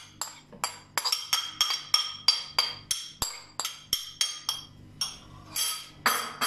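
Metal spoon tapping and scraping against a ceramic plate to knock ginger-garlic paste off into a pressure cooker: a quick run of ringing clinks, about three a second, with two longer scrapes near the end.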